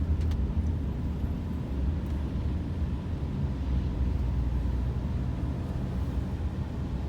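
Steady low rumble of a car driving along the road, engine and tyre noise heard from inside the cabin.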